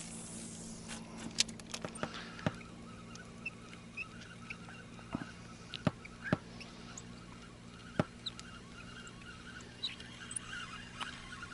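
Spinning reel cranked steadily during a lure retrieve: a faint steady whir, with scattered short clicks and ticks.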